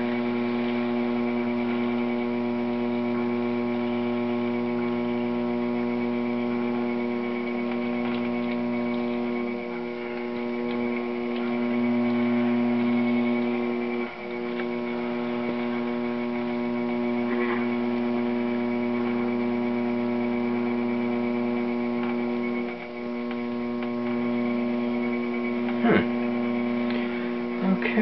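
Electric potter's wheel motor running with a steady hum while clay is thrown on it, the level dipping briefly a few times; a sharp click near the end.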